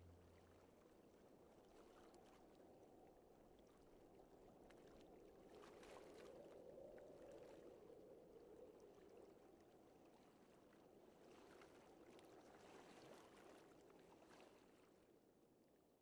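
Faint water lapping at a lakeshore, with small splashes and drips; it fades out near the end.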